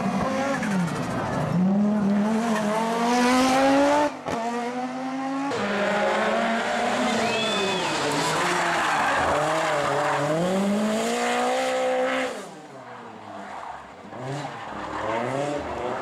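Group B rally car engines at full throttle, their pitch climbing through the gears and dropping at each shift, in several short clips cut together. Over the last few seconds the engine sound is quieter and lower.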